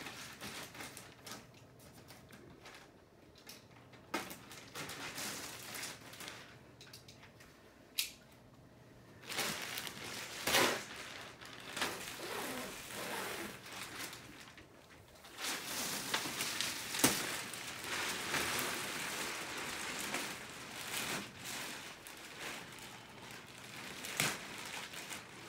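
Clear plastic wrap crinkling and rustling in uneven stretches as it is pulled and bunched off a mattress, with a few sharp crackles; quieter at first, louder from about a third of the way in.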